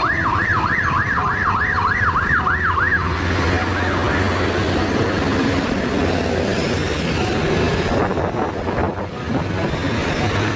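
A siren yelping with rapid rising and falling whoops, about three a second, that stop about three seconds in. Under it, and alone after it, the steady running of the motorcycle's engine with road and wind noise as it rides through traffic.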